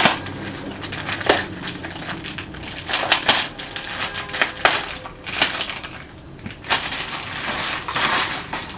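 Plastic bag crinkling and rustling in irregular bursts as hands rummage through it.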